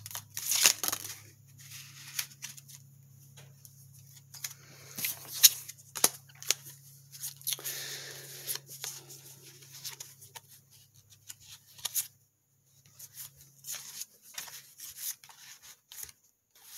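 A deck of tarot cards being handled and shuffled: irregular crisp snaps and slides of card stock, with a longer rustle about halfway through.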